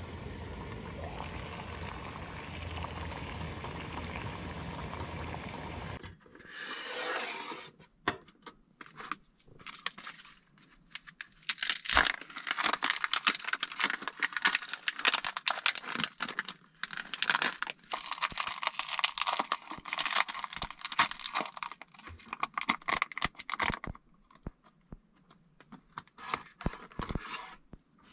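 A canister gas stove's burner hisses steadily under a pot for about six seconds, then stops. After a short burst, something is crinkled and torn by hand for about fifteen seconds as a fast run of crackles and crunches.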